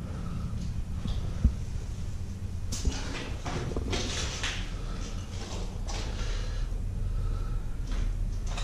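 Intermittent rustling and scuffing over a steady low rumble, with a single sharp thump about a second and a half in and the busiest scuffing around three to four and a half seconds.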